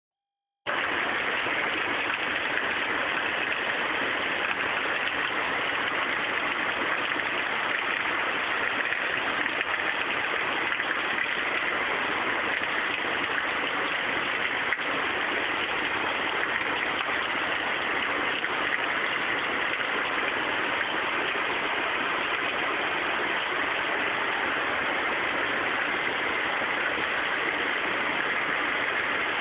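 Heavy rain from a rain storm, pouring in a steady, even hiss.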